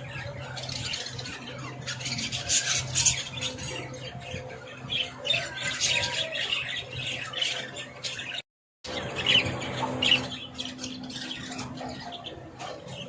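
Many parrots squawking and chirping at once in a dense, overlapping chatter of short calls. All sound cuts out for a moment about eight and a half seconds in.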